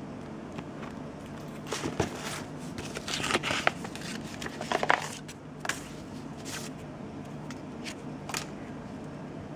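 Paper and cardboard packaging being handled: sheets rustling and crinkling in irregular bursts, busiest in the middle, with a few lighter rustles later, over a steady low hum.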